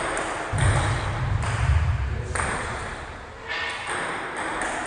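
Table tennis rally in a gym: ping-pong balls clicking off paddles and the table, a sharp hit roughly once a second, over a low hum from the hall.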